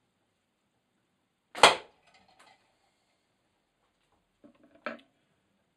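Single sharp crack of a flat gum rubber catapult shot, a 14 mm lead ball fired at a hanging tin can, about a second and a half in, with a short ring after it. A fainter knock follows about three seconds later.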